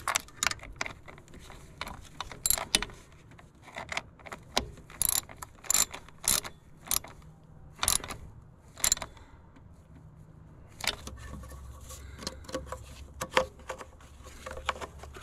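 Hand ratchet on a long extension clicking in short, uneven strokes as the screws of a new plastic PCV valve are driven in, with small clicks and knocks of the tool on the housing.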